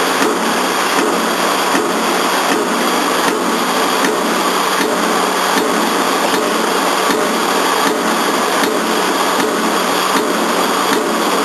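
Single-station CNC punch press, a mechanical power press, punching holes in steel plate at about two strokes a second, each stroke a sharp knock over the machine's steady running hum.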